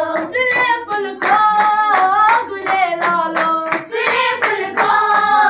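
A group of girls singing a song together, clapping their hands in a steady rhythm on the beat.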